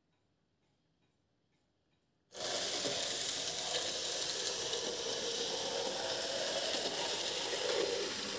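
Near silence with faint, regular ticking, then about two seconds in a steady whirring hiss starts abruptly and carries on evenly.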